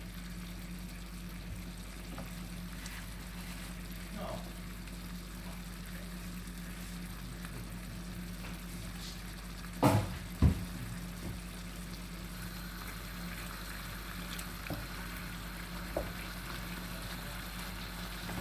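Chicken pieces deep-frying in hot oil, a steady sizzle under a low hum, with two sharp knocks close together about halfway through.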